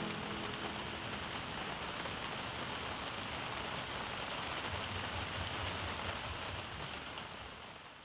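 Steady rain falling. The last notes of a band's instrumental outro die away in the first second, and the rain fades out near the end.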